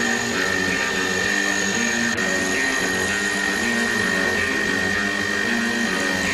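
Desktop CNC milling machine running, with a steady high whine and lower tones that shift in pitch every fraction of a second.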